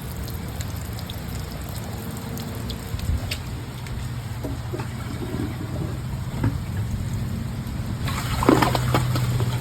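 Water running and trickling in a toilet after a flush, as the tank refills, with a bowl that has just clogged.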